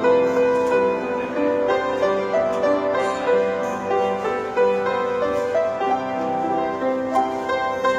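Piano playing a Thai popular song: a melody over sustained chords in a flowing, moderate rhythm.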